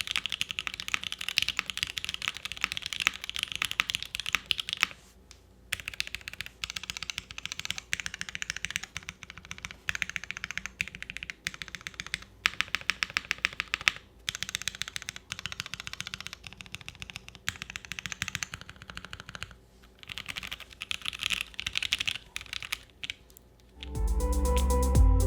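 Fast typing on a custom mechanical keyboard: an Iron165 with lubed SP-Star Meteor White linear switches on a full POM plate, under GMK keycaps. The keystrokes are dense clacks with a few short pauses, and electronic music starts near the end.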